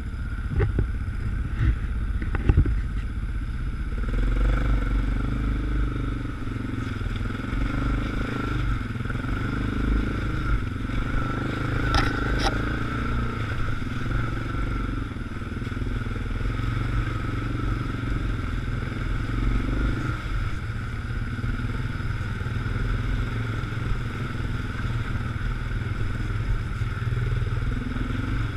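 An ATV engine running as the quad rides a rough, muddy trail, heard from on board. There are clattering knocks in the first few seconds and a sharp click about twelve seconds in.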